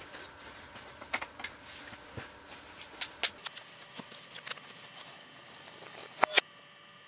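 Deer hooves pattering and knocking on dry dirt as deer bolt away after a bow shot: irregular sharp taps through the middle, with the two loudest knocks close together about six seconds in, then an abrupt cut.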